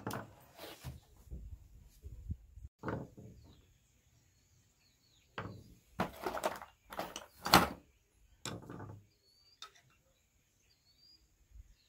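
Tools and small metal parts of a Carter Thermoquad carburetor being handled as its accelerator pump is taken apart: a series of separate knocks, clicks and scrapes, loudest about six to eight seconds in.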